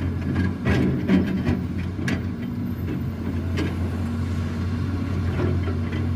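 A large engine running steadily with a low hum, with scattered sharp knocks and clicks every second or two.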